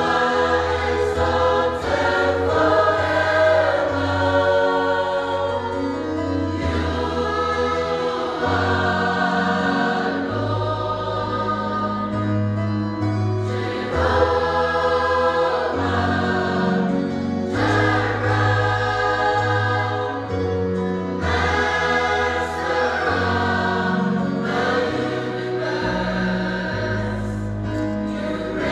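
Mixed church choir of men's and women's voices singing a Samoan hymn (pese fa'apitoa) in parts, with deep bass notes under the voices that change every second or two.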